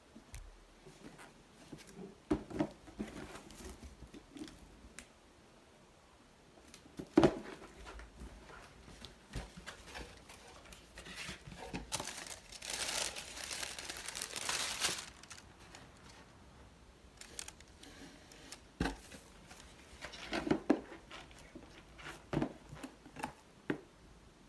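Handling noises from a pair of sneakers and their packaging: scattered taps and knocks, with a stretch of crinkling rustle about halfway through.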